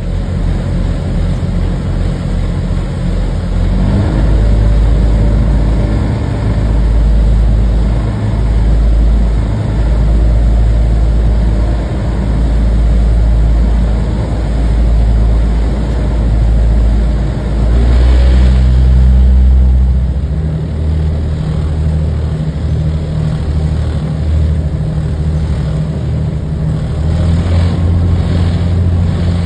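Motorboat engine running steadily at speed, with the rush of its churning wake. The engine note shifts about two-thirds of the way through.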